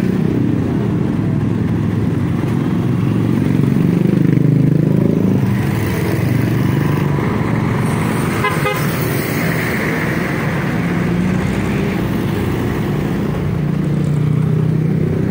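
Busy street traffic: motorcycle and jeepney engines run close by in a steady low rumble, with a short horn toot.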